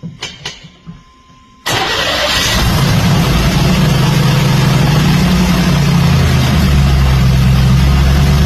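A few clicks, then the Camaro's engine fires about two seconds in and settles into a steady idle, dropping slightly lower near the end. It starts and keeps running because the fuel pump is now powered through the jumped factory fuel pump relay.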